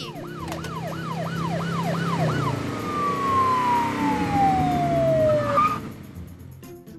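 A police siren wails quickly, its pitch rising and falling about three times a second. About two and a half seconds in, it turns into one long falling tone that stops a little before six seconds, with a low rumble underneath.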